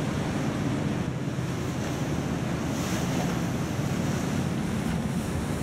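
Steady wind buffeting the microphone over the rush of choppy, wake-churned water.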